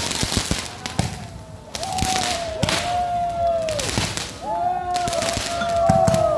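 Ground firework fountain going off: sharp crackling pops in the first second, then several overlapping whistles, each held for about a second and dropping in pitch as it ends, with more pops mixed in.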